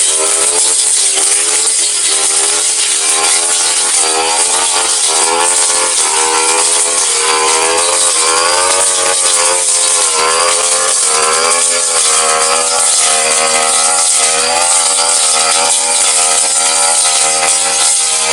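Brush cutter with a stamvik metal blade, its engine running at high speed while cutting grass down to the ground, the pitch wavering up and down again and again.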